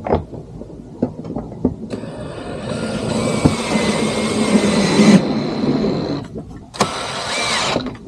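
A small electric motor whirs, building for about three seconds and then cutting off suddenly, and runs again for about a second near the end. A few light clicks and knocks come before it.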